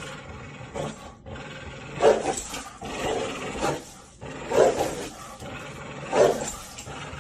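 Large dog play-growling over a stuffed chew toy, in a string of short, rough growls about a second apart.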